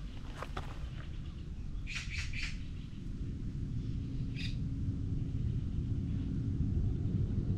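Small bird chirping: three quick chirps about two seconds in and one more a couple of seconds later, over a steady low rumble.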